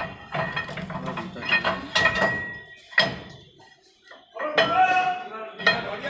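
Sharp metal clanks and knocks from steel tools working on a bus's wheel hub and axle, the loudest about halfway through, with one strike ringing briefly.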